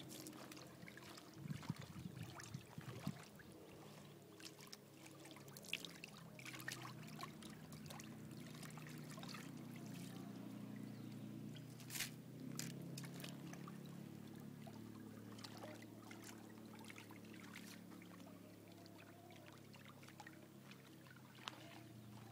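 Water sloshing and trickling in a plastic basin as grain is washed by hand, with scattered small splashes and clicks as wet grain is scooped into a bucket.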